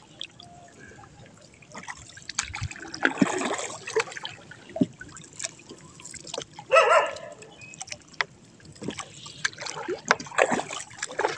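Wet trammel net being paid out over the side of a small boat: water trickling and splashing off the mesh, with scattered clicks and knocks against the boat.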